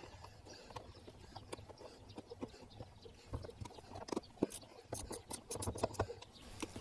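Faint light metal clicks and ticks of a 3 mm Allen wrench turning the screw that holds a sidecar seat latch. The clicks are sparse at first and come faster and closer together in the second half.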